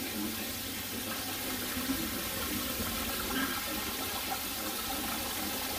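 Water dumped from a full 500-litre hot liquor tank, running steadily across the floor and pouring down a floor drain.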